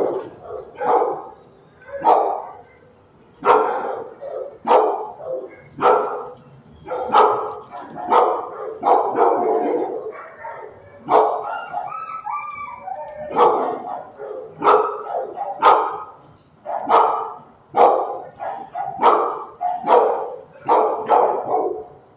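Dogs in a shelter kennel barking repeatedly, about one bark a second, with no letup.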